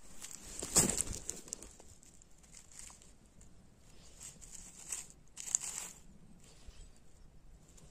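Dry leaf litter and twigs rustling and crunching, with two louder crunches, one about a second in and one a little before six seconds, and small crackles between them.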